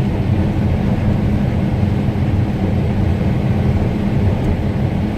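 John Deere S680 combine running steadily while harvesting wheat, heard from inside the cab: an even, unbroken low drone of engine and threshing machinery.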